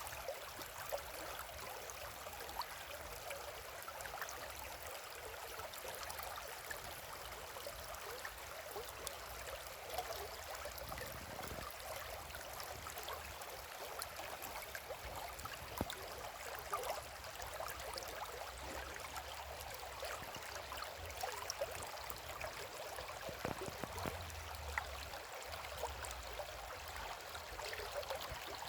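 Shallow river flowing over stones, a steady rush of water with many small splashes and gurgles.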